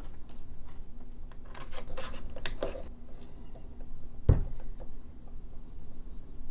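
A screwdriver and a Troy Industries QD sling mount being handled and fitted onto an AR-15's Picatinny quad rail: scattered small clicks and scrapes, with one dull thump about four seconds in.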